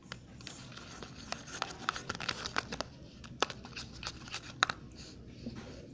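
Clumping clear-slime mixture of glue and water being stirred in a container: irregular sticky clicks and crackles as the mix is worked.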